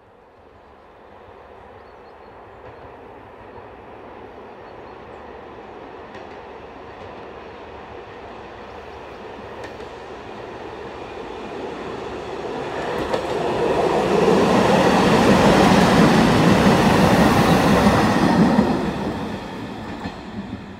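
A blue Dm7 diesel railbus approaching along the track, its sound slowly growing louder. It passes close by about two-thirds of the way through, where it is loudest, then quickly fades away.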